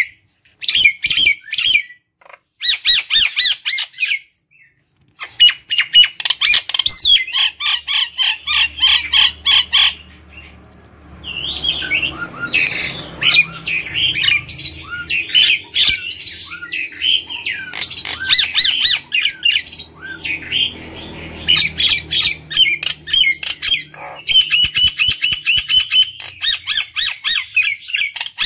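Common myna (jalak nias) singing loudly: long trains of rapid, sharp repeated notes broken by brief pauses, with a more varied stretch of warbles and squawks in the middle.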